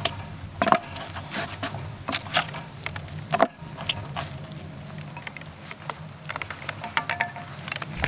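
Wooden chopsticks stirring cooked rice and flaked salmon in a pot, with irregular clicks and scrapes against the pot as the scorched bottom crust is mixed in. Two sharper knocks come about a second in and near the middle.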